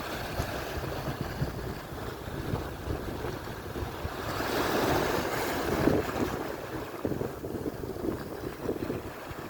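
Atlantic surf washing on the shore, swelling louder and brighter about halfway through as a wave breaks, with wind buffeting the microphone.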